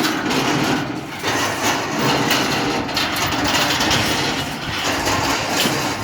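CNC rebar bending machine running: a steady hum under dense rattling and clicking noise.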